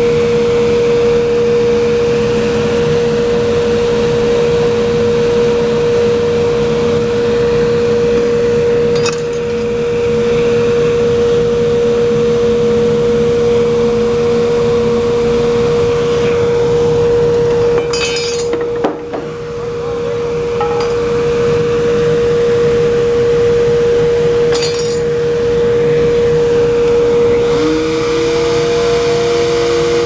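Woodshop machine motor running with a steady whine and noise. A brief clatter comes about two-thirds in, and near the end a second motor spins up with a rising whine, as the router table is about to cut.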